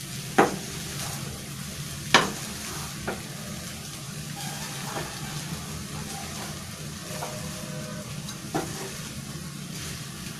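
Spatula stirring and turning egg fried rice in a frying pan over a steady sizzle, with a few sharp knocks of the spatula against the pan, the loudest about two seconds in.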